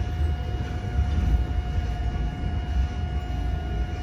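Cabin sound of a Seoul Line 1 electric multiple unit car: a steady low rumble from the running gear, with a faint steady high hum over it.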